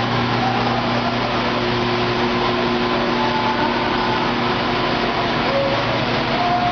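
Semi-automatic water-jug washing machine running steadily: a constant electric motor hum under a broad rushing hiss.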